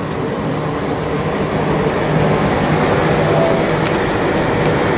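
Southern Class 377 Electrostar electric multiple unit running along the platform close by: a steady rumble of wheels on rail, growing a little louder over the first two seconds, with a thin, steady, high-pitched whine above it.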